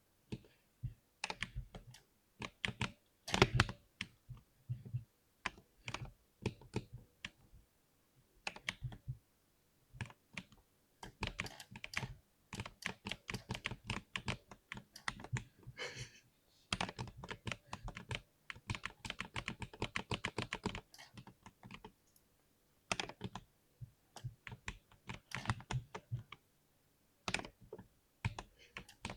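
Typing on a 60% keyboard: runs of rapid keystrokes in bursts, broken by a few brief pauses, with one especially hard stroke a few seconds in.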